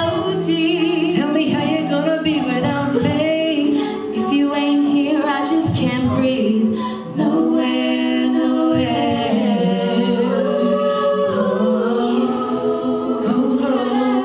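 A mixed-voice a cappella group singing a pop song live. A male lead sings into a microphone over backing voices holding sustained chords.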